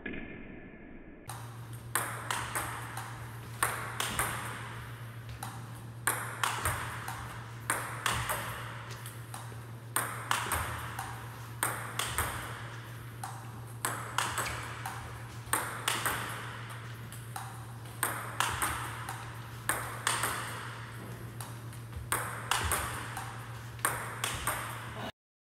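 Table tennis forehand smash drill: a celluloid-type ping-pong ball fed, bouncing on the table and smashed with a rubber-faced paddle, making sharp clicks that come in clusters about every two seconds. A steady low hum runs underneath.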